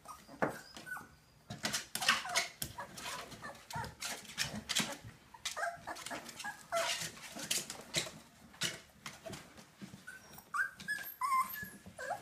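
Four-week-old Korean Jindo puppies giving short high whimpers and squeaks, with scrabbling and rustling as they clamber over the blanket and the plastic tub. The cries come in small bunches around the middle and near the end.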